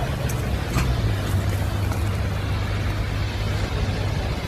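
An engine running steadily with a low hum that drops slightly in pitch about a second in, over a broad rushing noise, with a few sharp cracks in the first second and a half.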